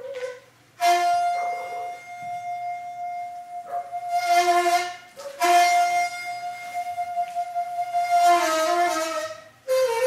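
Daegeum (Korean transverse bamboo flute) playing two long held notes, each starting with a strong breathy attack, with short breaks about a second in and near the end.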